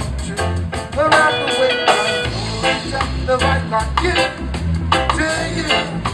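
Live reggae band playing, with a heavy repeating bass line under rhythmic guitar and drums.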